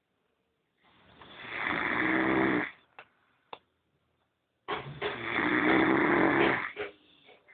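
A person snoring: two long snores of about two seconds each, the second one starting about halfway through, with two short clicks in the quiet between them.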